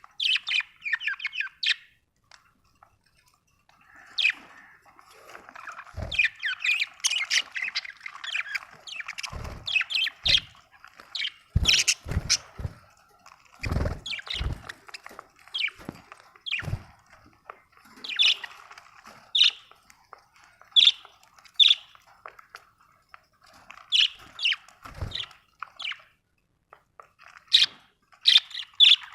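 Budgerigars chirping, squawking and chattering in quick runs of short notes, with a brief lull a couple of seconds in. Scattered dull knocks are heard among the calls.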